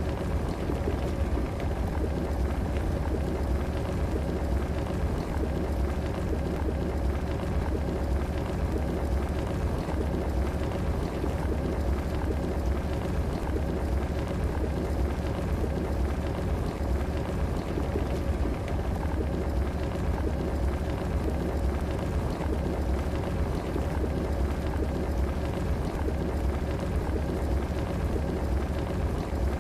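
Electric kettle heating water: a steady low rumble of water coming to the boil, with a faint steady hum above it and no change throughout.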